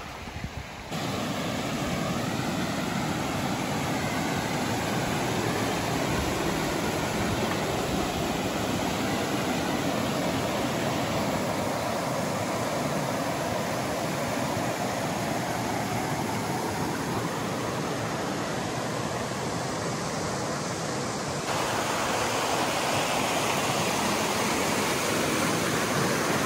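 Creek water pouring over low rock ledges in small cascades: a steady rush that comes up about a second in and shifts slightly in tone twice.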